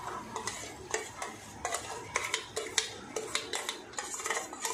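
Metal spoon scraping and clinking against a bowl, an irregular run of sharp clinks a few each second, as thick hung yogurt is scooped out into a pan of chicken.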